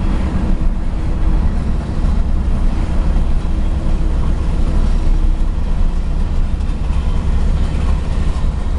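Steady low-pitched road and engine noise inside a pickup truck's cab moving at highway speed.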